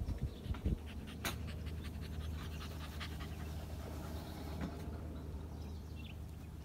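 Dog panting rapidly close by, a quick run of short breaths.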